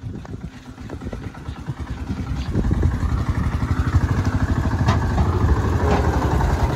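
Old Eicher tractor's diesel engine chugging with a fast, steady beat under load as it pulls a heavily loaded sugarcane trolley, growing louder as it draws near about halfway through. A few sharp knocks come through on top.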